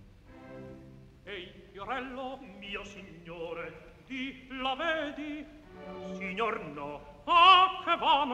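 Operatic singing with strong vibrato over orchestral accompaniment. The voice comes in about a second in and is loudest near the end.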